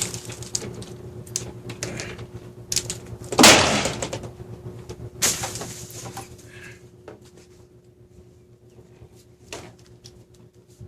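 PVC greenhouse hoops and a wooden baseboard knocking, scraping and clattering as they are worked loose and pulled out. The loudest clatter comes about three and a half seconds in, another about five seconds in, then only scattered light knocks.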